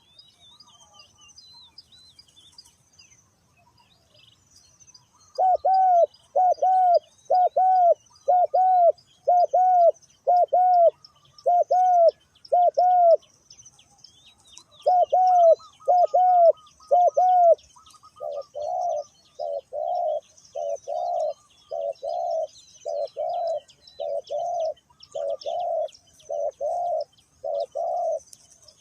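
Spotted dove cooing in a long repeated series that starts about five seconds in: clear, evenly spaced coos, a brief pause, then a quieter, rougher run of coos. Small birds chirp faintly throughout.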